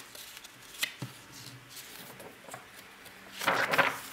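Hands handling the pages of a large book: a few light taps and rubs on the paper, then a page turned over with a loud paper rustle about three and a half seconds in.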